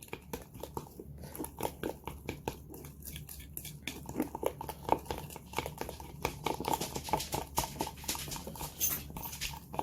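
Teaspoon stirring cake mix and milk in a coffee mug: a quick, irregular run of clinks and scrapes of the spoon against the mug as the batter is blended.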